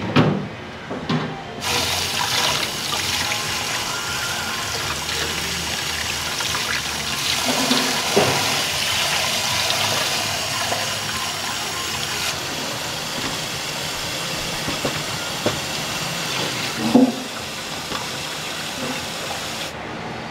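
Kitchen tap running hard into a steel sink as vegetables are rinsed under it. The water starts a moment in and stops just before the end, with a few knocks of pots or dishes, the loudest about 17 seconds in.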